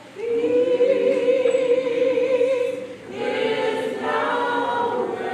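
Church choir singing, holding one long chord, then moving to a new held chord about three seconds in.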